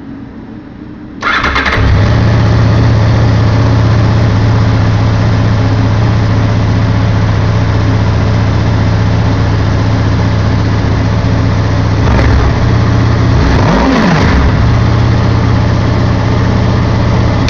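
2004 Honda VFR800's V4 engine starting about a second in, then idling steadily. Around two-thirds of the way through it is revved once, the pitch rising and falling back, and it stops at the end.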